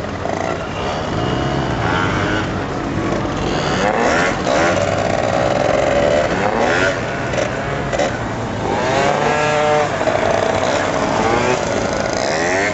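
Scooter engines revving, several at once, their pitch rising and falling over and over.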